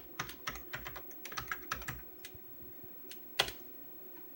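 Typing on a Commodore Amiga 2000 keyboard: a quick run of key clicks over the first two seconds or so, then a single louder keystroke past the three-second mark.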